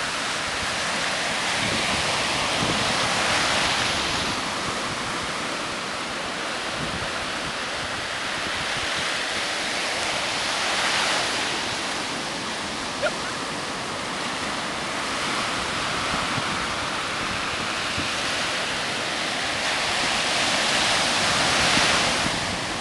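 Ocean surf breaking and washing up the sand: a steady hiss of water that swells louder every several seconds as waves break.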